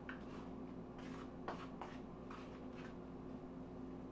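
A utensil mixing flour and seasoning on a plate: soft, irregular scraping strokes about twice a second, over a faint steady hum.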